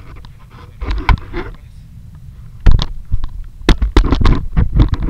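Wind buffeting the microphone as a low rumble. About halfway through, a rapid run of knocks and bumps starts as the camera is handled and jostled.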